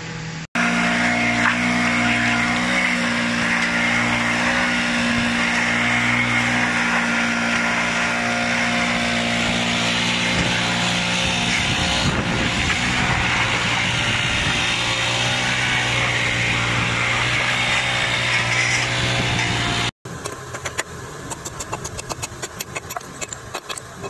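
A steady machine-like hum, with a metal shovel scraping and breaking sheets of ice on pavement and ice cracking. After a sudden cut, a fast run of sharp clicks.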